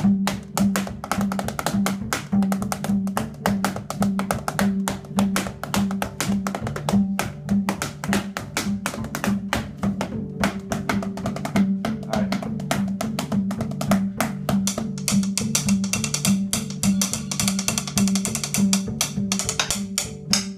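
Drumsticks rattling out a fast solo on the strings of an upright double bass while the bassist stops the notes, making woody, pitched clicks over a repeating bass line. The sound turns brighter and hissier in the last few seconds.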